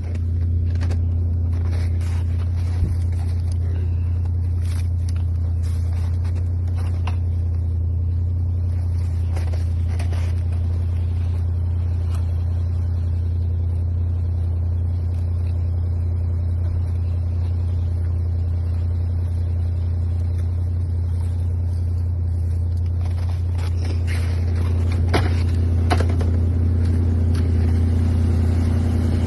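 An engine running steadily at a constant speed, a low, unbroken drone with a few faint knocks, getting slightly louder near the end.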